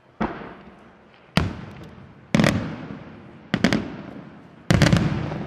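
Aerial firework shells bursting, five sharp bangs about one a second, some doubled, each fading away slowly in echoes.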